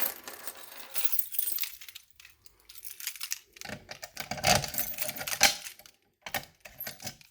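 Keys jangling, with irregular metallic clicks and rattles that are loudest about four to five and a half seconds in.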